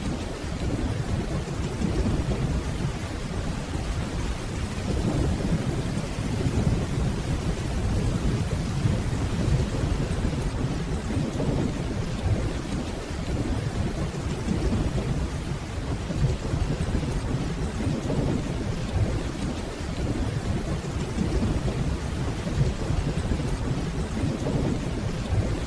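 Steady rainfall with a low, continuous rumble of distant thunder beneath it.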